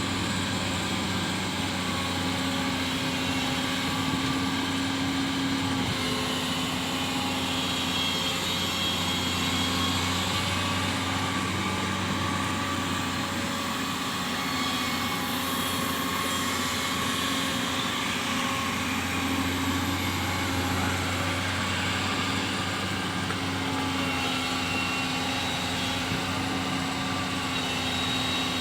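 Amphibious excavator's diesel engine running steadily, its note shifting a little now and then as the machine works.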